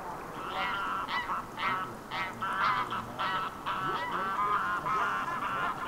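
Geese honking: a run of short, repeated honks, about two a second.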